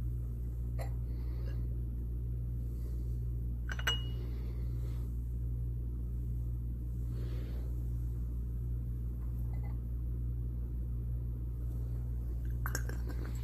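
A few light glass clinks from glassware being handled while a graduated cylinder is filled by pipette: a faint one about a second in, a sharper ringing one near four seconds, and more near the end. They sit over a steady low hum.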